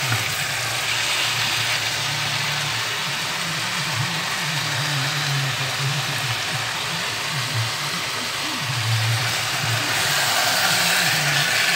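Beef cubes and spice paste frying in a wok: a steady sizzle under a constant low hum, with a wooden spatula stirring through the pan.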